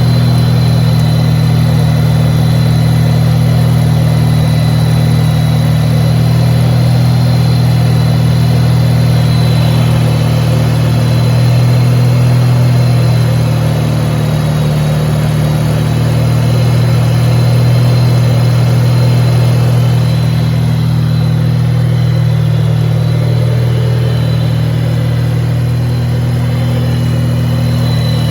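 Wankel rotary engine idling steadily, its level swelling slightly now and then, with a thin steady high whine over it.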